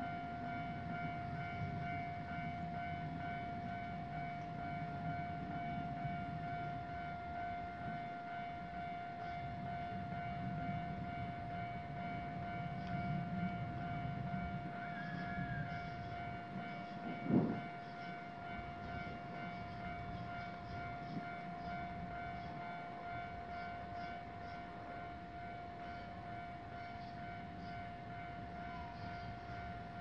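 Japanese level crossing's electronic warning bell ringing steadily with the signal active, a single clear tone repeating without a break. A low rumble sits under it for the first half, and a single sharp knock comes about 17 seconds in.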